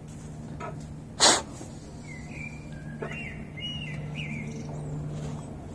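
A bird chirping a short run of gliding notes in the middle, over a steady low hum. About a second in there is one sharp knock, the loudest sound.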